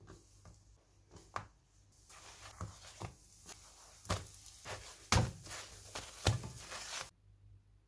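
Light knocks and clacks of kitchen items being handled, about a dozen irregular taps over a faint hiss, denser and louder in the middle, cutting off suddenly near the end.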